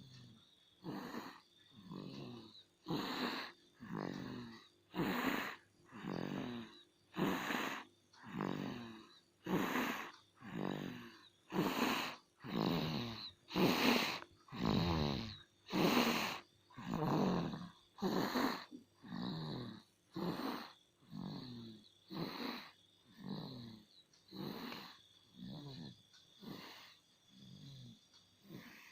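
A sleeping child snoring: a rasping snore about once a second, growing louder toward the middle and fading again near the end.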